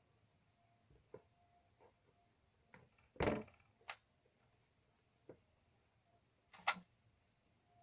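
Scattered clicks and knocks of hand tools and metal cable lugs being handled while a lug is fitted onto a battery cable. The loudest are a rough knock about three seconds in and a sharp click near the end.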